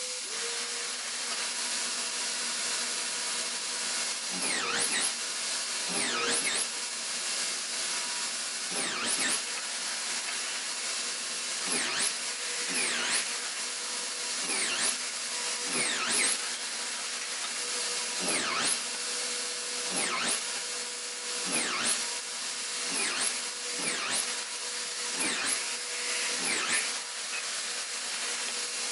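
Electric sander running steadily on wood, with a sweeping swish about every second and a half as it is worked back and forth over the piece.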